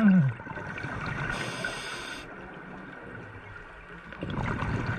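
Underwater sound of a scuba diver breathing through a regulator: a short hiss about a second and a half in, and a louder gurgle of exhaled bubbles near the end.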